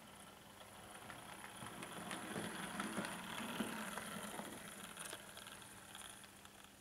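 Model 4MT Standard tank locomotive running past on the layout: a mechanical whir with small clicks that grows louder to a peak about three to four seconds in, then fades away.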